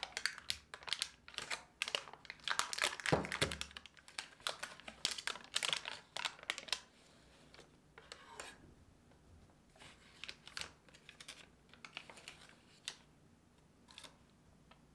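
Foil butter wrapper crinkling as it is unfolded off a block of butter: dense crackling for about the first seven seconds, then quieter, scattered rustles and taps.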